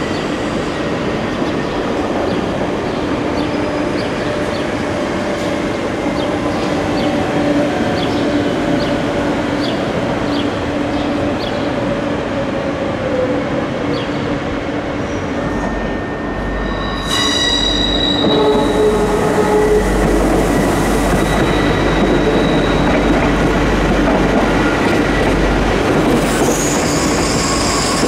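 Electric regional trains running through a station: steady traction-motor hum with a whine that slowly falls in pitch, and faint regular wheel clicks over the rails. Later comes a louder train passage with high-pitched wheel squeal, strongest near the end.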